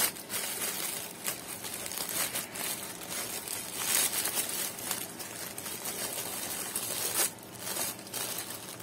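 Packaging crinkling and rustling in irregular bursts as a parcel is opened by hand.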